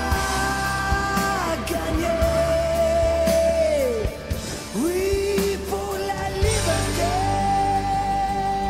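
A sung soundtrack ballad in French: a singer holds several long notes, each sliding downward as it ends, over instrumental backing.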